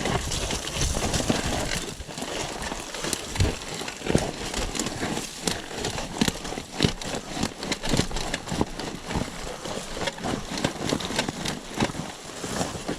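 Irregular knocking and clattering of a dirt bike jolting over loose rocks on a rough trail, with no steady engine note standing out.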